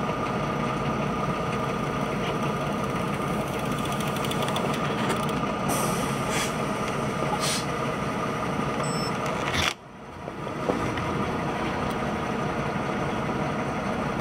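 Diesel engine of a stationary MAN lorry idling, a steady hum. The sound dips sharply about ten seconds in and comes back within a second.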